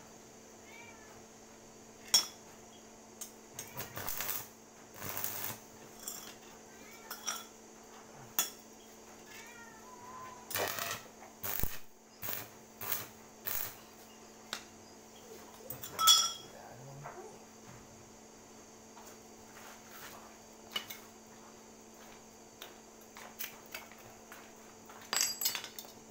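Stick (arc) welder working in short spells: the electrode arcs against a flat steel bar with crackling, sputtering bursts that start and stop several times, between clinks of metal parts being handled, over a steady hum.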